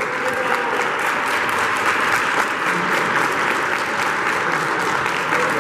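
Crowd applauding, a dense, even patter of many hands clapping.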